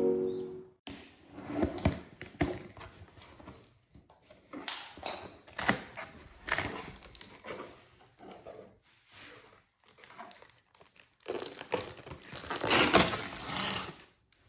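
Packaging being unwrapped by hand: irregular crinkling and rustling in short spells, with the longest and loudest stretch near the end.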